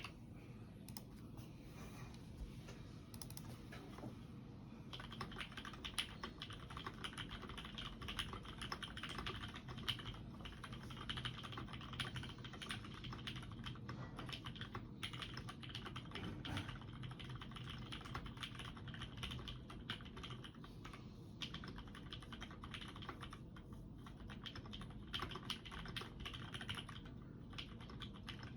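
Continuous typing on a custom UTD360C mechanical keyboard with Black Sakura 60g switches, EverGlide stabilizers and GMK keycaps: a steady stream of key clacks. The typing grows faster and denser about five seconds in.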